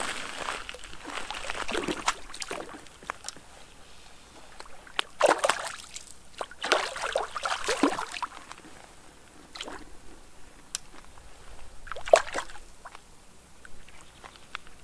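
Water sloshing and splashing at the bank in several short, irregular bursts, with a few faint clicks in between.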